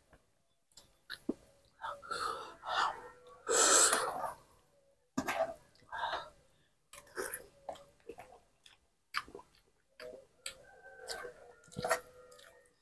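Eating sounds: a metal spoon clinking and scraping on a plate of rice and noodle soup, with chewing and breathing in irregular bursts. About three and a half seconds in comes a loud burst of breath.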